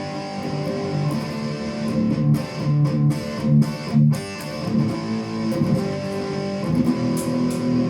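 Electric guitar played through a clone of the Revv G3 high-gain distortion pedal: distorted chords, with a run of short, punchy chugs in the middle and a chord held ringing near the end.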